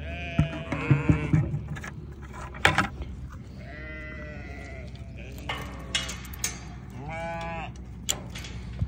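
Sheep in a flock bleating, about three calls: one near the start, a longer one about four seconds in and another about seven seconds in. A few sharp clicks fall between the calls.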